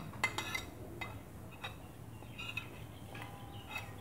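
Metal spoon scraping and clinking against a plate and bowl as ground spices are tipped in: a run of light, irregular clinks, loudest just after the start.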